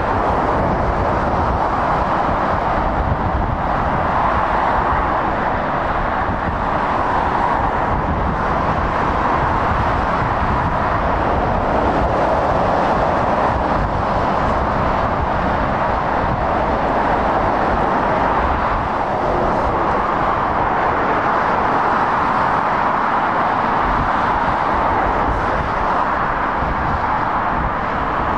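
Steady roar of motorway traffic, tyres and engines of cars and lorries passing below, swelling gently every few seconds as vehicles go by.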